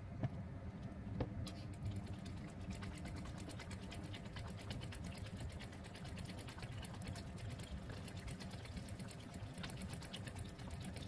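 Cooking oil heating in a nonstick pan, crackling with many small rapid pops over a steady low hum.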